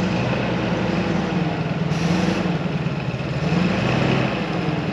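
GAZ-66 truck engine running as the truck crawls forward over rough ground, its revs rising and easing a little twice.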